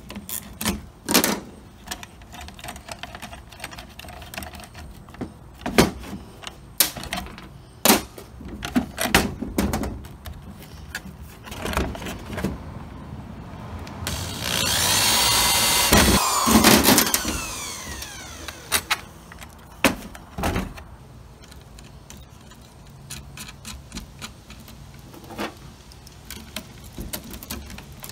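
Electric drill running and drilling for about three and a half seconds around the middle, its pitch falling as it spins down at the end. Before and after it come scattered knocks and clatter of the metal fuse panel and tools being handled on a workbench.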